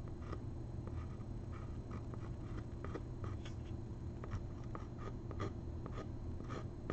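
Pencil scratching on a painting panel in short, irregular strokes as a leaf outline is sketched, over a faint steady low hum.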